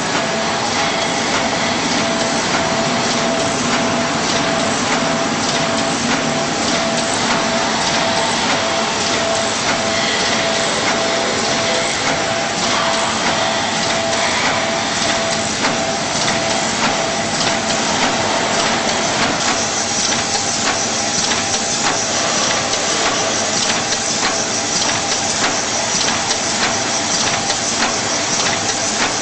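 Automatic multi-colour container screen printer running: a steady dense clatter of fast mechanical clicks over constant noise, with a faint steady tone.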